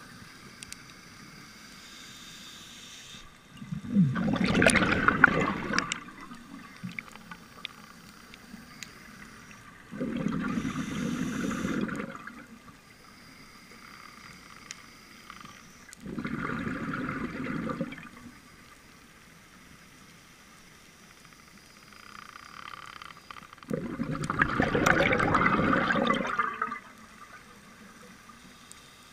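Scuba regulator exhaust heard underwater: four bubbling bursts of exhaled air, each two to three seconds long and several seconds apart, with a faint hiss between them.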